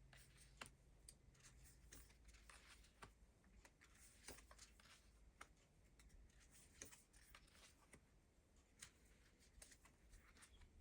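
Faint, irregular soft clicks and rustles of tarot cards being shuffled and handled.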